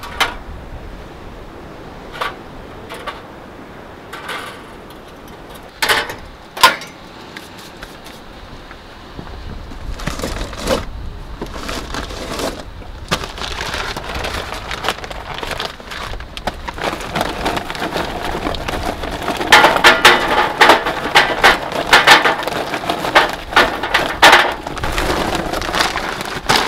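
Charcoal briquettes poured from a bag into a folding metal stove: a dense clatter of lumps hitting the metal, building up through the second half and heaviest near the end. Before it come a few separate hard knocks.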